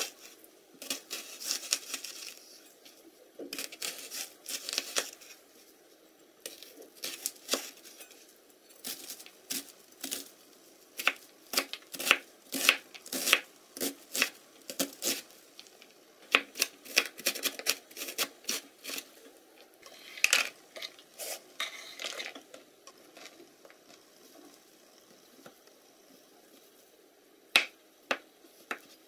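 Chef's knife cutting onion and then mushrooms on a wooden cutting board: irregular runs of sharp knocks as the blade meets the board. The chopping goes quieter for a few seconds near the end, then two more knocks.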